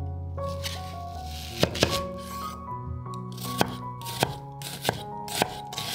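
Kitchen knife cutting through a raw onion and knocking on a wooden chopping board: several sharp knocks at irregular gaps, starting a little over a second in, over steady background music.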